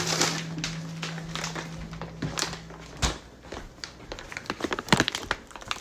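Crackling and sharp clicks of plastic packaging being handled, growing busier near the end, over a steady low hum in the first half.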